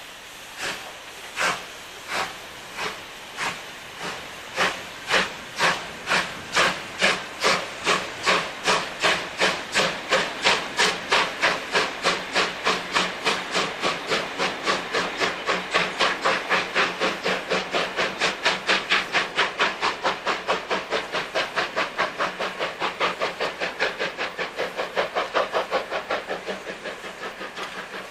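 Steam locomotive exhaust chuffing as the engine starts away and picks up speed, the beats quickening from about one and a half a second to about four a second and growing a little fainter near the end.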